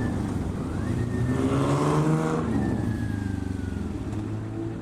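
Motorcycle engine under way, its note climbing as it accelerates for about a second, then dropping to a lower, steadier note.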